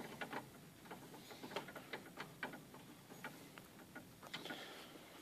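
Faint, irregular small clicks of a T10 Torx screwdriver working a screw out of a plastic shaft support, a few clicks a second.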